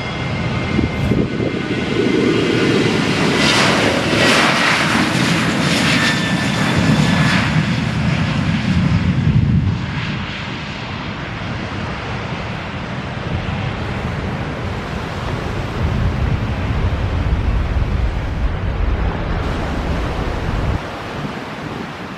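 Airliner taking off close by: loud engine noise for the first ten seconds or so, then a lower rumble that swells again and drops off shortly before the end.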